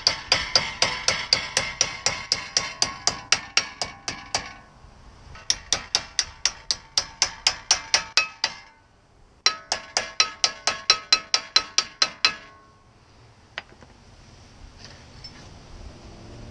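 Claw hammer tapping rapidly on a small metal brake part, about four or five light, ringing blows a second, in three runs with short pauses between them. The tapping stops about twelve seconds in.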